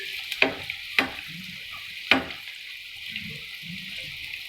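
A puri deep-frying in hot oil, with a steady sizzle, and three sharp knocks about half a second, one second and two seconds in, the last the loudest.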